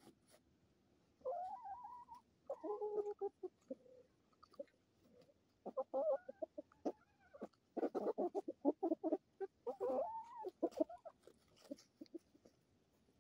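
Hens clucking and calling as they feed: runs of quick clucks, the busiest near the end, and a few longer rising calls, with scattered light taps.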